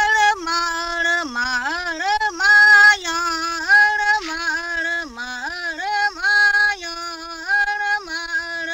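A single voice singing a slow melody of held notes that slide down and back up between phrases.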